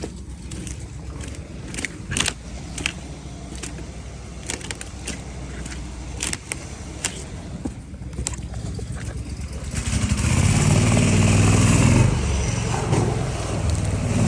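A boat motor running low with many sharp knocks and clicks over it, then opening up about ten seconds in to a much louder, steady engine note.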